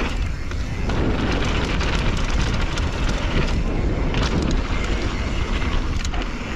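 Mountain bike rolling fast down a dry, loose dirt trail: knobby tyres crunching over dirt and gravel with many small clicks and rattles, and wind rushing on the microphone.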